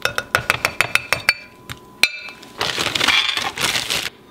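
Metal measuring cup rapped quickly against the rim of a glass mixing bowl to knock out packed brown sugar: a rapid run of about ten ringing clinks, then one more clink about two seconds in. The plastic brown-sugar bag then crinkles for over a second.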